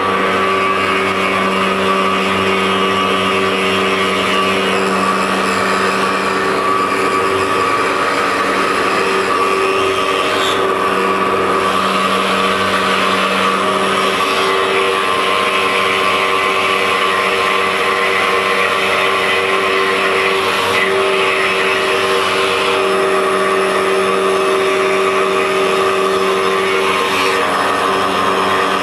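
CNC stone-cutting machine running steadily while machining stone, with a constant motor whine and a gritty cutting hiss that swells and eases every few seconds as the tool works.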